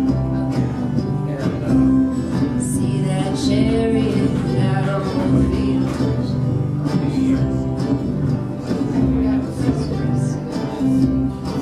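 Live acoustic country-folk music: an acoustic guitar strummed over an upright bass, with a voice singing.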